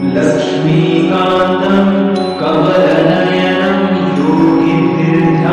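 Background music: a devotional mantra chanted in long held notes over a steady drone.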